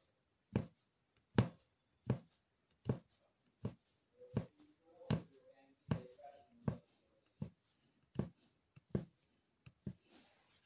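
Needle being pushed through embroidery fabric stretched taut on a frame, a short dull tap with each stitch, about one every three-quarters of a second.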